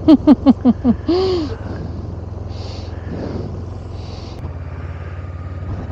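A person laughing in a quick run of short 'ha-ha' bursts for about the first second and a half. After that the steady low drone of a motorcycle running on the road carries on alone.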